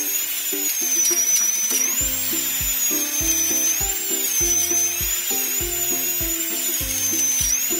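High-pitched dentist's-drill whine, its pitch wavering up and down, as the toy drill bores into Play-Doh teeth. Background music plays underneath, with a steady beat coming in about two seconds in.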